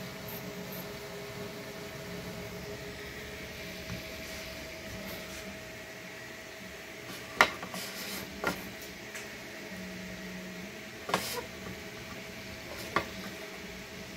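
Steady mechanical hum, with four sharp knocks in the second half: a hard plastic 3D-printed mask being handled and set down on an acrylic shelf.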